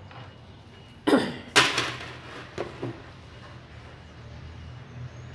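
A man coughs twice in quick succession, over a steady low hum.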